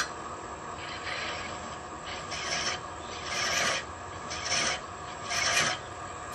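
Hand-held thread-chasing tool scraping the threads of a wooden insert spinning on a wood lathe, in five light, even passes about a second apart, over the lathe's steady running. A sharp click sounds right at the start.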